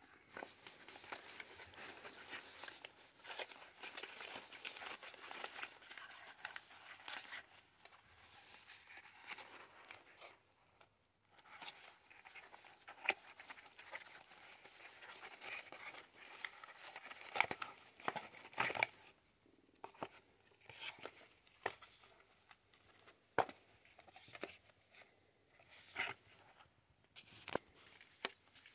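Packaging being unwrapped and handled by hand: steady crinkling and rustling, then after a short pause a run of separate sharp crackles and clicks.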